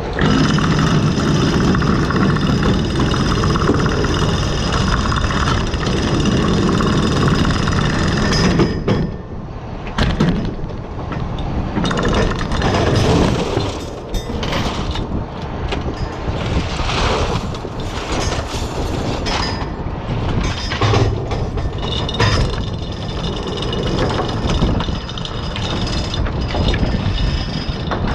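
An oyster dredge boat's engine and hauling gear running loud and steady, with a multi-tone whine, easing off about nine seconds in. After that, oyster shells clatter and knock on the wooden culling board over the engine as the catch is dumped and culled.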